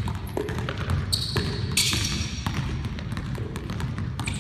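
A basketball dribbled hard and fast on a hardwood gym floor, a run of quick bounces, with a few brief high squeaks, the loudest about two seconds in.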